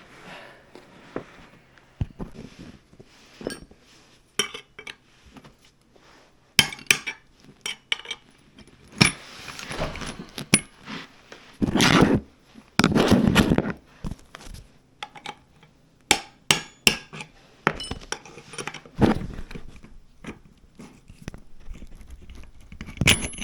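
Metal tools and parts clinking and knocking against an electric scooter's steering stem, a scattered run of sharp clicks with two louder, longer noises about halfway through.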